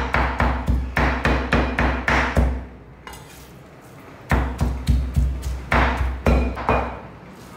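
Cleaver chopping minced pork on a cutting board in a steady rhythm of about four heavy chops a second. The chopping pauses for nearly two seconds midway, resumes, and stops shortly before the end.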